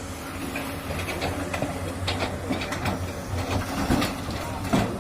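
Doosan DX200A excavator's diesel engine running steadily, with irregular metallic knocks and clatter, the loudest about four seconds in and just before the end.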